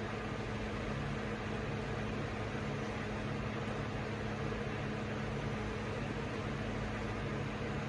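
Hampton Bay Tripoli ceiling fan running: a steady motor hum over a constant rush of air.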